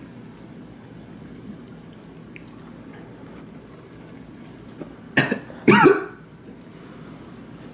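A young man coughing twice, about half a second apart near the end, the second cough longer and strained, as he chokes on the sour juice of a raw lemon wedge he is eating.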